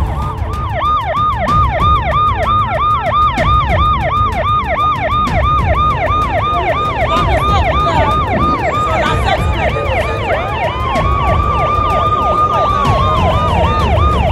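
Emergency vehicle siren sounding in a fast yelp, quick falling sweeps about four a second. About ten seconds in, a second siren wails up, holds its pitch and falls away near the end, while the yelp carries on. A steady low rumble runs underneath.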